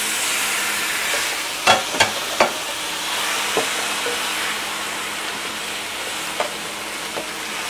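Oxtail pieces sizzling in hot oil in a frying pan as they are stirred with a plastic slotted spoon. The spoon knocks against the pan a few times, three in quick succession about two seconds in.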